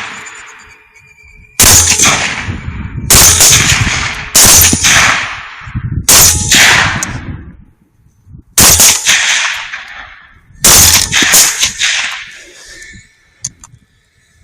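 A volley of rifle shots: about seven sharp reports over roughly ten seconds, irregularly spaced and some close together, each followed by a rolling echo that fades over about a second.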